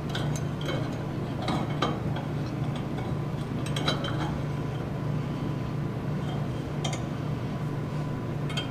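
Light metallic clinks and taps, scattered and irregular, as steel pieces and a clamp are handled and set on the work. A steady low hum runs underneath.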